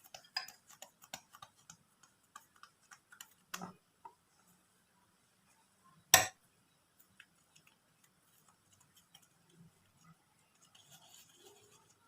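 Scattered light clicks and taps of kitchen handling, with one sharp knock about six seconds in.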